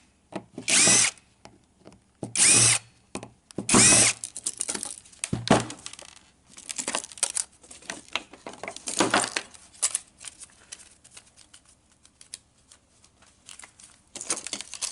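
Drill backing out the small screws that hold a hard drive's logic board, in several short bursts of under a second each over the first half and once more about nine seconds in. Between and after them come light clicks and rattles of loose parts.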